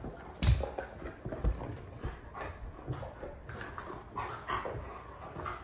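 Two dogs play-fighting: scuffling with dog vocal noises, irregular and short. A sharp loud sound about half a second in is the loudest moment.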